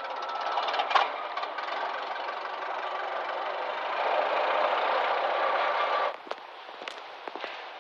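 Early motor car's engine running as it drives past, stopping abruptly about six seconds in; a few sharp clicks follow.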